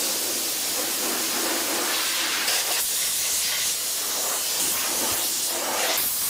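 Compressed-air blow gun hissing steadily as it blasts water off a freshly washed motorcycle, drying out the locks and electrics.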